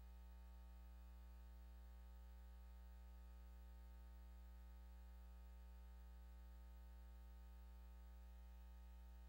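Near silence with a faint, steady electrical mains hum in the recording.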